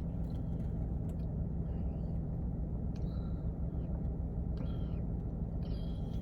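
Steady low rumble of a car idling, heard from inside the cabin, with a few faint clicks and rustles.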